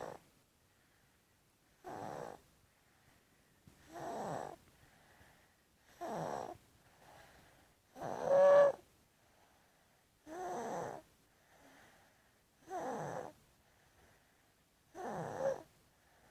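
A 15-month-old toddler snoring in sleep: a snore about every two seconds, with a faint breath between. The snore in the middle is the loudest and has a humming tone.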